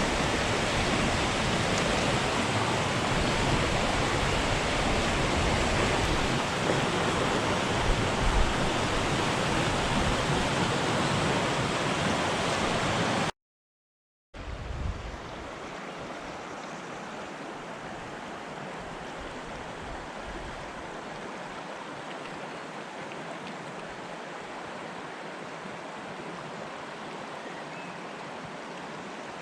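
River water rushing steadily. About halfway through it cuts out completely for about a second, then comes back quieter and thinner.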